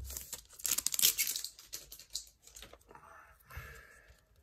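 Crinkling and rustling of a foil booster-pack wrapper and a stack of trading cards being handled, busiest and loudest in the first second and a half, then fading to quieter rustles.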